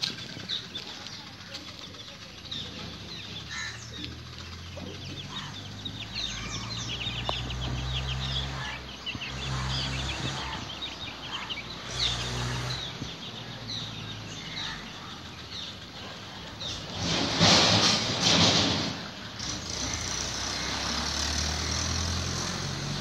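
Chicks peeping in many short, high cheeps, over a low steady rumble. About three quarters of the way through, a loud rustling burst lasts about two seconds.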